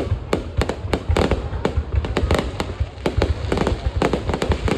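Aerial fireworks bursting in rapid, irregular succession, several sharp bangs a second over a continuous low rumble of booms.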